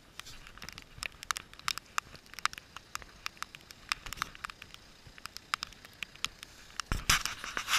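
Close-up handling noise: irregular crackling clicks and rustles, several a second, with a louder knock and rustling burst about seven seconds in.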